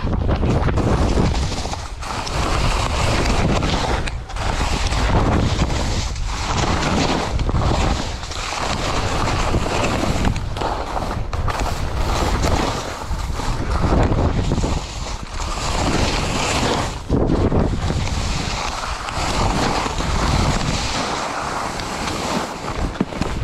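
Wind buffeting a skier's camera microphone, with the scraping hiss of skis carving through soft, chopped snow. The noise swells and dips about every two seconds as the skier links turns.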